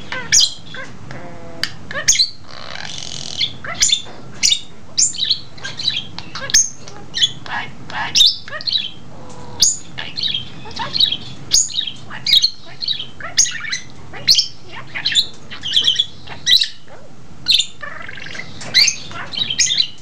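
Budgerigar chatter: a fast, unbroken run of short, sharp chirps, clicks and squawks, with a longer harsh squawk about three seconds in.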